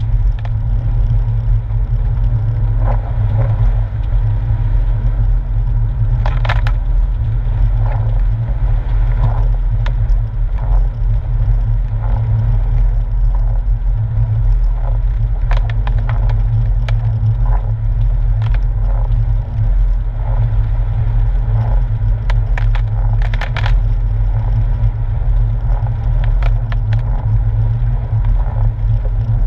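Porsche 997's flat-six engine running at low revs, heard inside the cabin as a steady low rumble. Scattered crackles and clicks from the tyres rolling over wet gravel and fallen leaves run over it.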